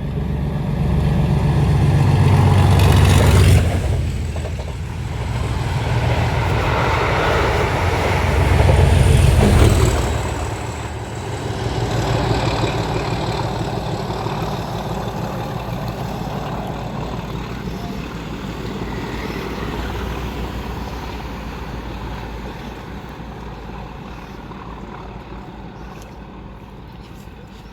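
Diesel locomotive and its train passing close by. The engine rumble is loud for about the first ten seconds, then fades steadily away.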